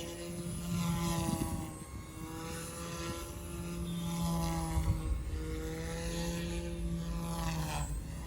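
Small electric RC helicopter (Lynx OXY 2) flying, its rotor and motor whine rising and falling in pitch as it manoeuvres, with wind buffeting the microphone. The pitch falls sharply near the end.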